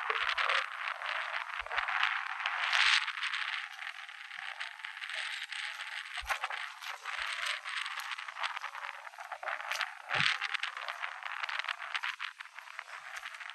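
Outdoor wind hiss with many small rattles and crackles through it, swelling about three seconds in and again near ten seconds. It sounds thin, with no bass.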